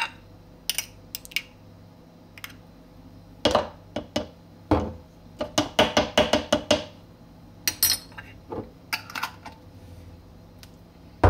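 Metal teaspoon clicking and scraping against a small mustard jar and a tall plastic blender cup as mustard is spooned in, with a quick run of taps a little past halfway. One sharp knock comes at the very end.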